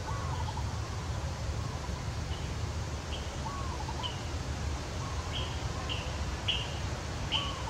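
Birds calling: short high chirps, coming more often and louder in the second half, with a lower curling whistled call now and then, over a steady low rumble.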